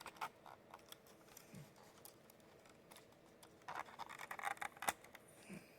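Faint scratching and small plastic clicks as the LCD's ribbon cable is slid out of the instrument cluster. About four seconds in there is a second of rustling and scraping, ending in a sharp click.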